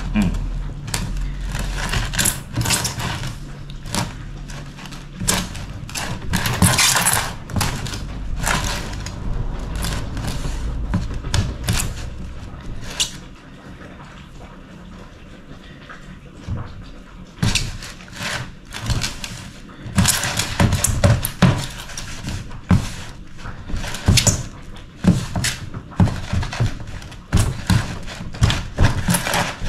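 Hands mixing and kneading wet bread dough in a plastic bowl: irregular squishing, slapping and knocks as the dough is worked. It is briefly quieter about halfway through, then the kneading strokes come faster again.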